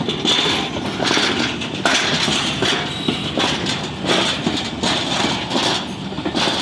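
Passenger train rolling past, its wheels clacking over rail joints in an even beat about once every three quarters of a second, over a steady running rumble.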